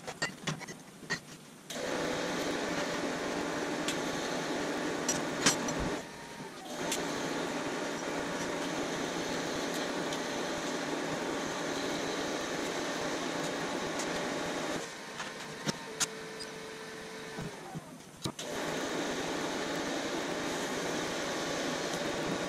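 TIG welding arc on steel, a steady hiss and buzz. It breaks off for a moment about six seconds in and drops to a quieter hum with a faint steady tone from about fifteen to eighteen seconds in, then picks up again.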